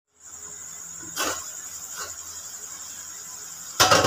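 Steady hiss of a lit gas stove under a covered karahi, with a thin high whine over it. Two light knocks sound about one and two seconds in, and a loud clatter comes near the end.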